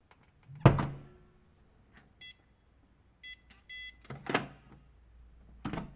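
Electronic fingerprint door lock beeping: a short beep, then a short and a longer one, between heavy clunks, the loudest about half a second in and others near four and near six seconds.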